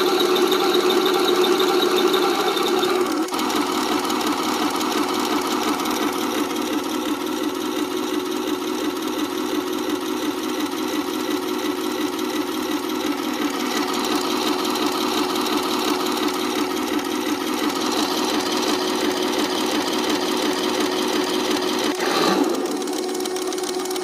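RC Tiger 131 tank model's electronic engine sound played through its small onboard speaker, a fast rhythmic buzzing engine note. It runs louder for about the first three seconds, then settles into a steady idle, with a brief change in pitch near the end.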